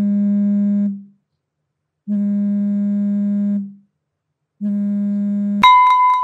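Mobile phone alerting to an incoming call: a steady low buzzing tone in three pulses with gaps of about a second. Near the end a sudden sharp hit with a ringing tone cuts in.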